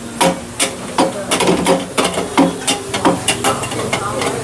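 Irregular small metallic clicks and clinks, several a second, as metal parts and hand tools are handled during hybrid battery pack assembly.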